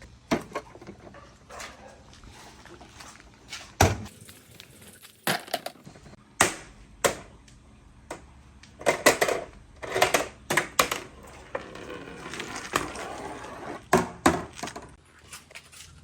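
Glass marbles rolling down a handmade wooden marble run, with irregular sharp clacks as they drop onto and knock against the wooden ramps and each other, thickest about two-thirds of the way through.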